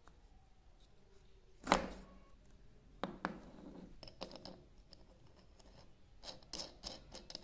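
Handling sounds as a small wooden clamp is put together: a sharp knock of wood about 1.7 s in, a couple of softer knocks near 3 s, then a run of light metallic clicks and taps as a washer and nut are fitted onto the threaded rod.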